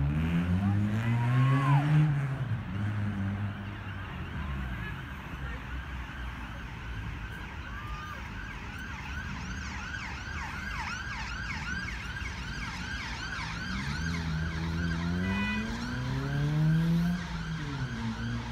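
Emergency vehicle siren sounding, with slow rising-and-falling wails near the start and near the end and a fast repeating yelp in the middle.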